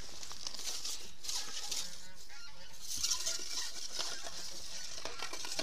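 Fishing gear being handled, nylon bags and holdall rustling in bursts, with a few faint honking calls behind it.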